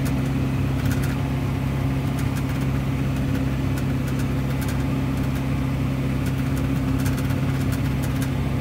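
Massey Ferguson 6615 tractor engine running steadily under load while pulling a John Deere 566 round baler, heard from inside the cab. Short rattling clicks come now and then, in line with the cab monitor that the driver says is rattling from vibration.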